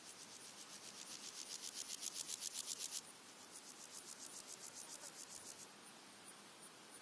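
Red-legged grasshoppers stridulating: a rapid train of rasping pulses, several a second, builds louder and stops abruptly about three seconds in, followed by a second, quieter rasping bout that ends near six seconds. Faint, even high ticking from other insects runs underneath.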